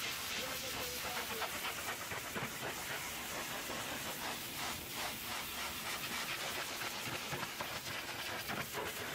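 Pressure-washer jet of hot water hitting a semi truck's polished alloy wheel and tyre: a steady hiss with water spattering off the metal.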